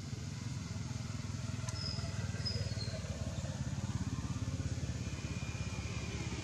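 Steady low engine rumble of a nearby motor vehicle idling or running, with a few faint high chirps about two seconds in.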